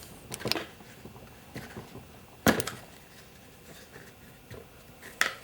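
A few sharp knocks and clicks from a bearing washer container as its lid is shut tight and it is handled. The loudest comes about two and a half seconds in.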